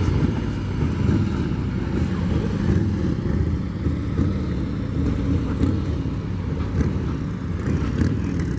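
Police touring motorcycles riding slowly past, their engines running with a steady low-pitched sound.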